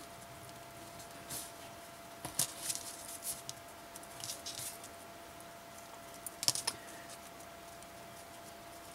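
Light clicks and rustles of hands handling ribbon and a small metal alligator clip, in small scattered bunches, with a sharper cluster of clicks about six and a half seconds in. A faint steady tone runs underneath.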